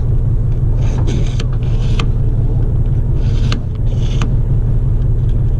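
Kitchen knife drawn through a handheld pull-through sharpener in several short scraping strokes, over the steady low drone of the fishing boat's engine.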